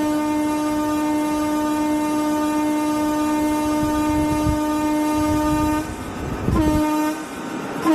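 Indian railway train horn sounding one long steady blast of about six seconds, then a short blast near the end, with a low rumble underneath.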